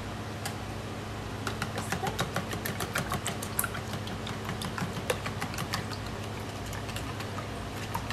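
Wire balloon whisk beating raw eggs in a bowl: quick, irregular clicking and tapping of the wires against the bowl. It starts about a second and a half in and thins out near the end.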